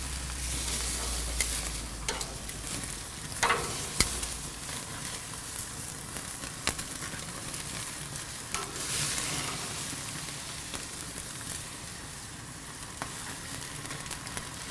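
New York strip steaks sizzling on hot gas-grill grates over open flame for a searing. A couple of sharp clicks from metal tongs come in the first few seconds.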